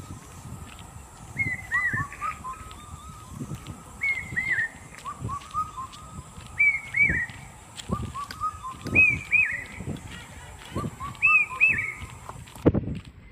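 A bird calling over and over: a pair of short arched notes about every two and a half seconds, with quicker, lower chirps between them. Low thumps run underneath, the loudest near the end.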